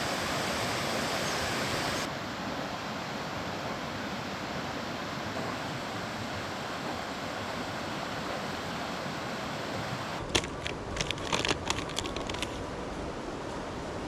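A river rushing steadily, an even hiss of running water that drops slightly in level about two seconds in. A short cluster of sharp clicks and knocks comes near the end.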